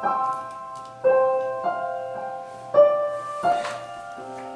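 Digital piano playing a run of chords, each struck and then fading, about one a second, with softer lower notes near the end, over a faint steady low hum.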